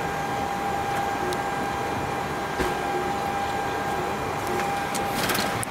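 Steady flight-deck noise inside an Airbus A321 cockpit while it taxis: a constant hum and rush from the idling engines and ventilation, with a steady high tone that stops near the end. There is a single click about two and a half seconds in and a brief crackle just before the end.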